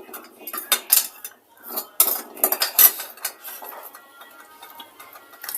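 Cutlery clinking and scraping against plates and dishes during a meal: a run of sharp clinks and clatters in the first three seconds, then only faint clicks.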